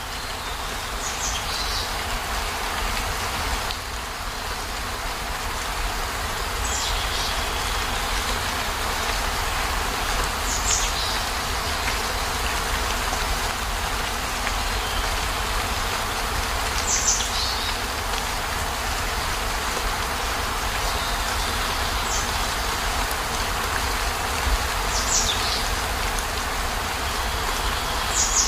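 Steady rain over a low, constant rumble. A short high sound, falling slightly in pitch, comes about every four to six seconds.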